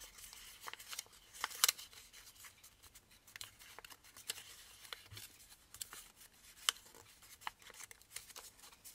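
Origami paper being unfolded and creased by hand: faint rustling and crinkling, with a few sharper crisp snaps of the paper.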